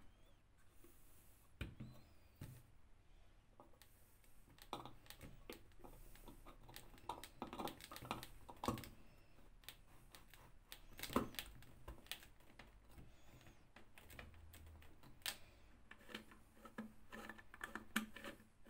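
Faint, irregular clicks, taps and light knocks of metal stove parts being handled and fitted together: the perforated burner plate of a kerosene camping stove set against its painted body, with the loudest knock about eleven seconds in.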